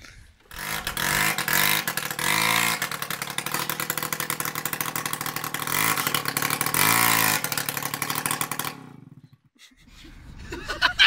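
Tomos Automatic moped's small two-stroke engine running, blipped up twice on the throttle, about two seconds in and again about six seconds in. It cuts off near the end.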